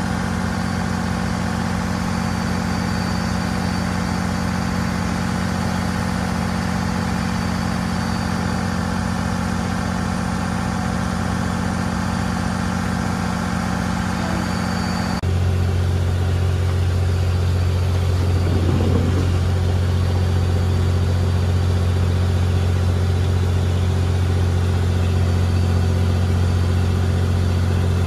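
Riverboat engine running steadily under way, a constant drone. About halfway through, the drone abruptly shifts to a deeper, slightly louder tone.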